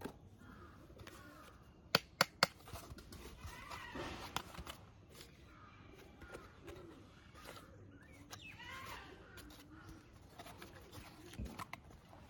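Hard plastic toy car parts being handled, with three sharp clicks about two seconds in and quieter scraping and knocking of plastic after. Birds call faintly in the background.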